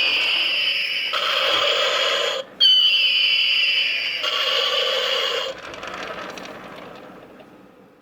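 Toy armoured car's electronic sound-effect chip playing through its small speaker: a high tone sliding downward over a steady buzzing drone, cut off and restarted about two and a half seconds in, then fading away near the end.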